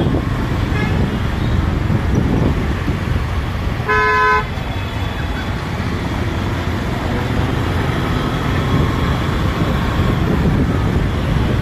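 Road traffic running steadily, with one short car horn toot about four seconds in.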